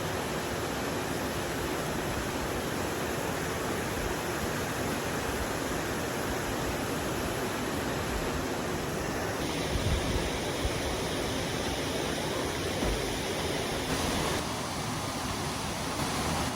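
Waterfall, a steady rush of falling water, with a few low bumps near the middle. The sound changes abruptly twice, about nine and a half and fourteen seconds in.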